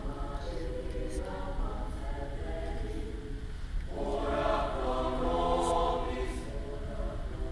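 High school mixed choir singing sustained chords, swelling louder and brighter about four seconds in.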